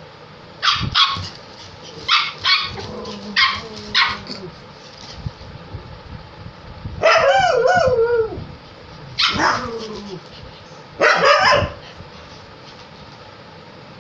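Pug puppy yapping in play: a quick run of short, high yaps, a longer wavering yelp about halfway through, then two more barks.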